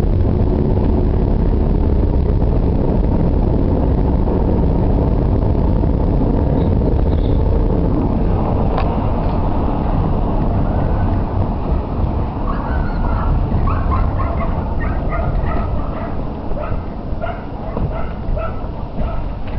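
Car driving on a dusty road, heard from inside the car: a steady low rumble of engine, tyres and wind. From about twelve seconds in, a dog barks and yaps repeatedly.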